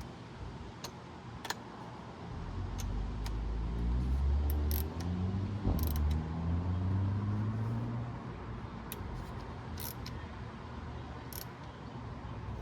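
Scattered light metallic clicks of a socket extension and ratchet handle being worked on suspension bolts under a car. A low droning hum, rising slightly in pitch, swells for several seconds in the middle and is the loudest sound.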